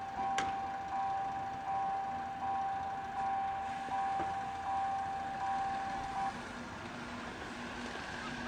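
Railway level-crossing warning bell ringing, a strike about every three-quarters of a second over a steady ringing tone, as the barriers come down for an approaching train; it stops about six seconds in. A single sharp click just under half a second in.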